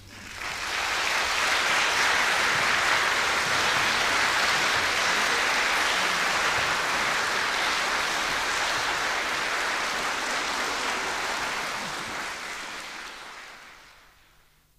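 Audience applauding at the end of an orchestral performance: clapping rises quickly, holds steady, and dies away near the end.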